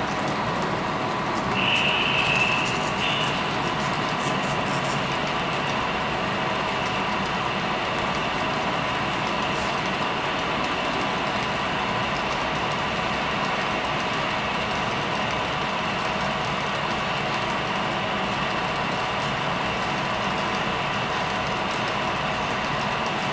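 Model freight train rolling past on layout track: a steady running hum of wheels on rail with a few steady tones. A brief high tone sounds about two seconds in.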